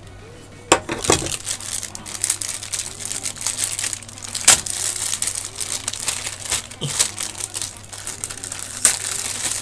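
Clear plastic bag crinkling and crackling as it is handled and pulled open by hand, with frequent sharp snaps.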